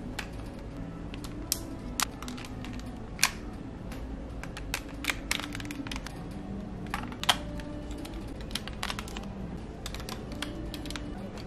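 Hard plastic parts of a DX ZenKaijuOh combining robot toy clicking and snapping as it is pulled apart and refitted into another mode. The clicks are sharp and irregular, with a few louder snaps.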